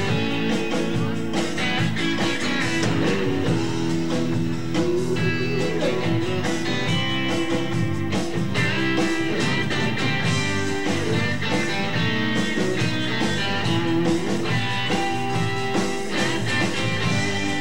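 Two acoustic guitars playing live together, an instrumental passage with a steady strummed rhythm.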